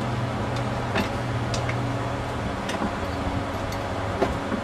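Scattered light metallic clicks and taps of parts being handled inside an automatic transmission case, about half a dozen spread irregularly, over a steady low hum.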